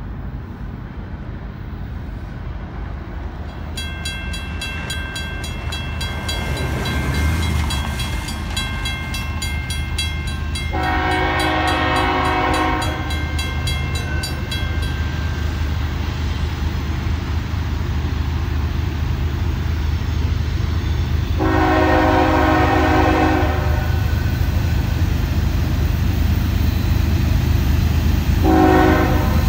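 Diesel freight locomotives approaching a grade crossing with a low rumble that grows louder, sounding the air horn in two long blasts and then a short one near the end, the opening of the standard crossing signal. The crossing bell rings rapidly from about four seconds in until about fifteen seconds.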